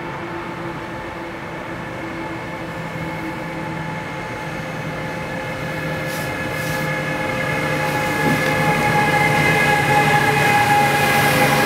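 Class 189 (Siemens ES 64 F4) electric locomotive approaching and passing at the head of a container freight train: a whine of several steady tones over the running noise of the train, growing steadily louder as it nears.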